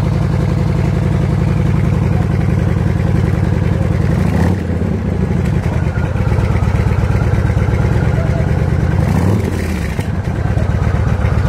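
Yamaha Road Star Warrior's 1700 cc air-cooled V-twin breathing through an aftermarket exhaust, idling in neutral with a steady pulse. The throttle is blipped twice, the revs rising briefly and dropping back about four and a half seconds in and again about nine seconds in.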